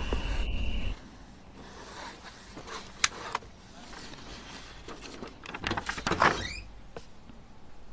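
Night ambience of a steady high insect trill over a low rumble, cutting off after about a second. Then a quiet room with a sharp click about three seconds in and a brief rising, scraping sound of movement about six seconds in.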